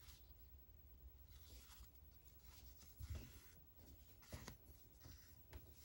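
Near silence with a few faint, brief scratchy rubs: a needle and embroidery floss being drawn through cross-stitch fabric.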